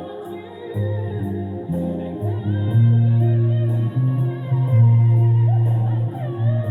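Music: an electric bass guitar playing long, held low notes over a backing track with guitar and a steady hi-hat tick; the bass notes grow louder a little under halfway through.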